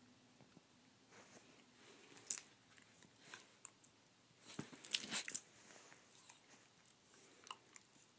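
West Highland white terrier mouthing and nibbling at a finger: irregular wet clicks and smacks of teeth and tongue, busiest for about a second in the middle.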